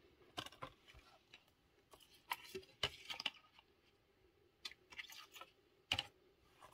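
A plastic Blu-ray case and its cardboard slipcover being handled: the case slid out of the sleeve, turned over and set down on the table. A scatter of light clicks, taps and rustles.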